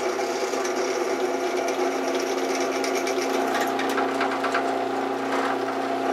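Drill press running with a large gear-oiled twist bit cutting into a metal bracket under light feed pressure: a steady motor hum with the cutting noise over it, and irregular scraping ticks from the cut joining in about halfway through.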